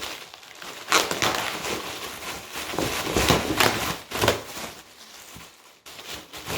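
A delivery package being torn open by hand: irregular rasps of tearing and crinkling packaging, loudest about a second in and again around three to four seconds in, then quieter.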